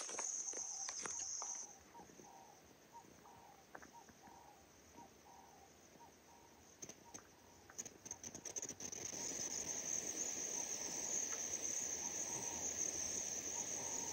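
Steady high-pitched insect chorus. It drops away after about two seconds and comes back a little past halfway, with a few faint clicks in the quiet stretch.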